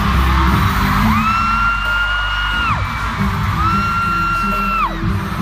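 Live pop music in an arena with a fan close by screaming twice: two long, high, steady screams, each dropping off sharply at the end.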